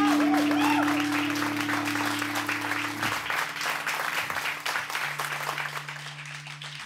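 Audience applauding as the final acoustic guitar chord rings out. The chord dies away about three seconds in, a single low note lingers, and the applause thins and fades near the end.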